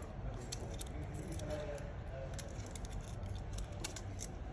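Light, scattered clicks and ticks of small parts and tools being handled while a smartphone motherboard is set into the phone's frame, over a low steady background hum.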